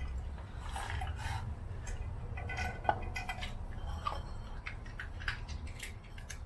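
Shiba Inu eating dry food from a plastic slow-feeder bowl: irregular clicks and crunches of kibble against the bowl, over a low steady rumble.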